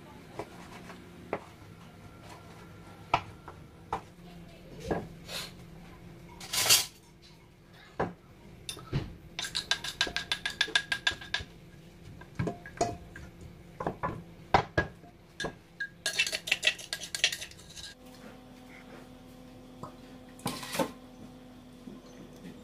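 Kitchen clatter: a knife cutting through pork ribs on a plastic cutting board, then knocks and clinks as a wooden pestle and pork pieces move in a stainless steel bowl. The sounds are irregular sharp knocks, with two dense runs of rapid clicking partway through.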